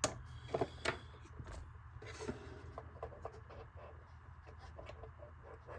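Light clicks and taps of small hard plastic parts being handled, with a few sharper clicks in the first second and faint ticking after.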